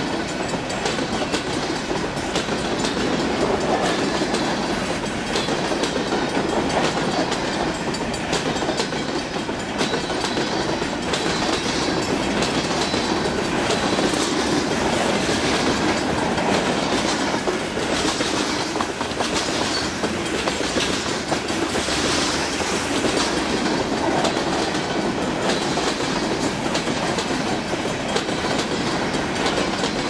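Freight train's boxcars and covered hoppers rolling past steadily, a continuous rumble with the clickety-clack of wheels over rail joints.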